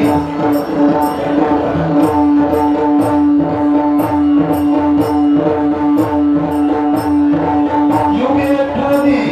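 Live Marathi folk performance music, here without singing: a note held steady throughout, a melody moving above it, and small cymbals or other percussion ticking out a beat of about two strokes a second.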